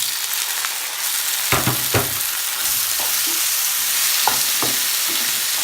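Onions, garlic and freshly added chopped tomatoes sizzling in hot oil in a pan, with a steady hiss. A utensil knocks against the pan twice about one and a half seconds in, and lightly a few more times near the end, while stirring.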